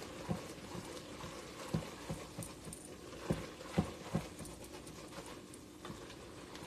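Metal wire whisk stirring flour into sautéed vegetables in a stainless steel pot, knocking and scraping against the pot at an uneven pace, with a few louder clinks past the middle. The flour is being cooked into a roux.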